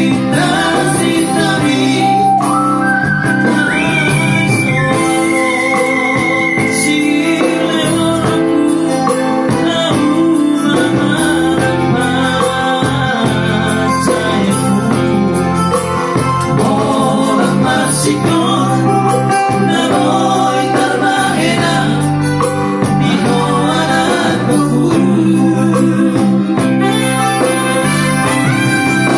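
Live Batak song: male vocals with vibrato sung into microphones over electronic keyboard accompaniment, amplified through PA speakers.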